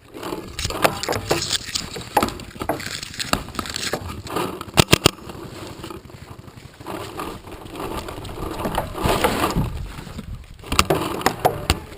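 Paintball markers firing: scattered sharp pops, with a quick string of about three roughly five seconds in, over uneven shuffling noise.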